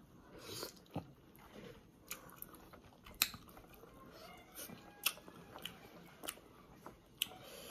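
Biting into and chewing slices of Marian plum (maprang), with a short sharp crunch every second or two.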